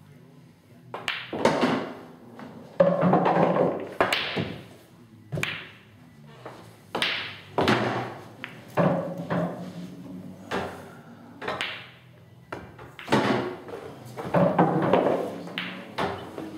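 Pool balls being played: the cue striking the cue ball, balls knocking together and thudding into cushions and pockets, in irregular sharp knocks.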